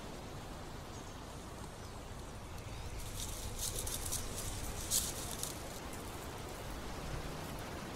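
Dry fallen leaves crackling and rustling underfoot in a short flurry about three seconds in, loudest near the five-second mark, over a steady low background rumble.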